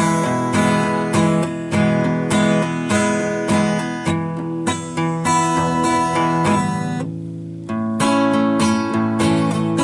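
Acoustic guitar strummed in chords, the strokes coming steadily; the sound fades a little about seven seconds in before a new chord rings out.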